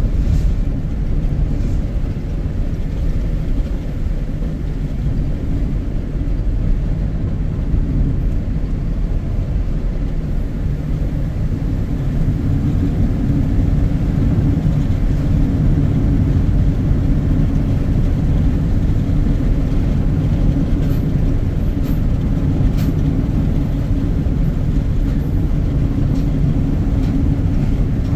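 Car driving at steady speed: a continuous low rumble of road and engine noise.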